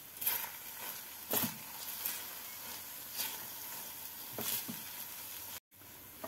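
Milk-soaked bread crumbs sizzling in a frying pan while a silicone spatula stirs and scrapes through them, about five scraping strokes over a steady sizzle. The mixture is being cooked down into a stiff dough.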